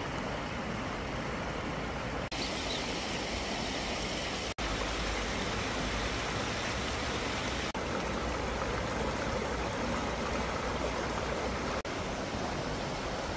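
Shallow rocky mountain stream running over stones and small rapids: a steady rush of water, broken by a few brief gaps where shots are joined.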